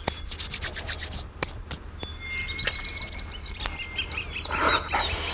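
A quick run of scraping, rustling noises over the first second and a half, then small birds chirping from about two seconds in.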